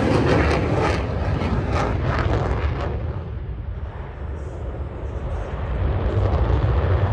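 F-35A Lightning II's jet engine during a flying display, loud with crackle at first, fading by about three seconds in, then the rumble building again toward the end.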